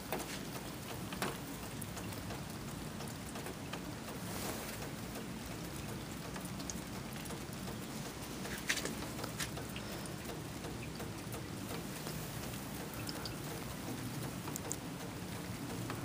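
Heavy wet snowfall with very large flakes, heard as a steady soft hiss, with a few scattered faint clicks.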